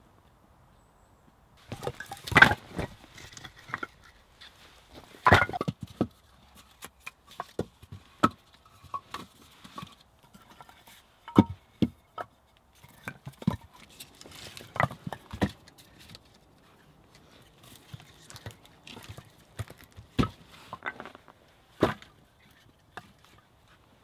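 Cut log rounds knocking and clattering together as firewood is handled and stacked: irregular wooden knocks, the loudest a little over two seconds in and again about five seconds in.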